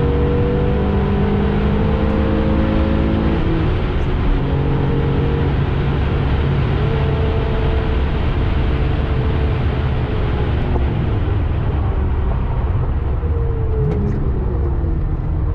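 Porsche 996 Carrera 2 3.6's flat-six engine running under load, heard from inside the cabin over a steady rush of tyre and road noise. The engine note climbs in long steady rises, breaks off briefly about three and a half seconds in, and falls away near the end.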